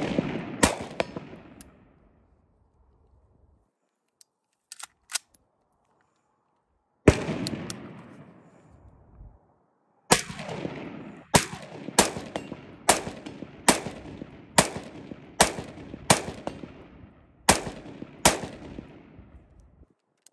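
AR-15-style rifle firing single shots, each crack ringing out across the open range: a few shots at the start, a few light clicks about five seconds in, one shot at about seven seconds, then a steady string of about ten shots a little under a second apart.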